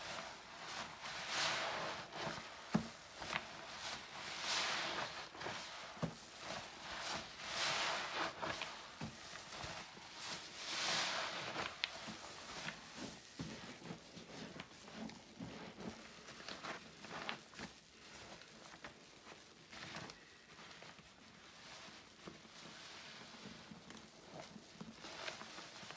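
A sponge soaked with floor cleaner being squeezed over and over: wet squishing swells about every second and a half, giving way in the second half to quieter, shorter crackling squelches.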